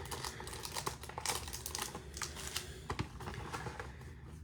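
A trading card pack being handled and opened by hand: soft wrapper crinkling with many small irregular clicks and ticks.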